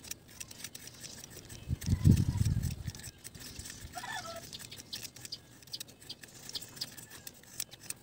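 Knife shaving a thin bamboo strip, making small scraping ticks throughout. A chicken clucks once about four seconds in, and a brief low rumble, the loudest sound, comes about two seconds in.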